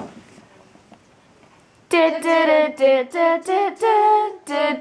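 Low room noise, then about two seconds in a child's voice starts singing a tune with no accompaniment, a run of short held notes stepping up and down.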